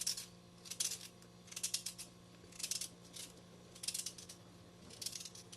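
A knife cutting a beetroot: six short slicing strokes, about one a second.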